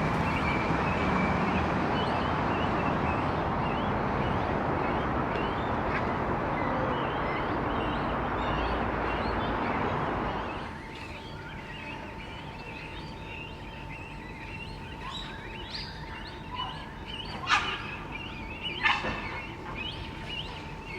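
Birds calling: a dense, even clamour that stops abruptly about halfway through, then a quieter stretch with a faint steady hum and two loud, sharp bird calls near the end.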